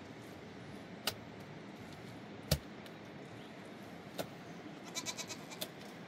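Stones knocking as they are handled and set into a mud-and-stone wall: three sharp knocks, the loudest about halfway through with a dull thud, then a short quick rattle of clicks near the end.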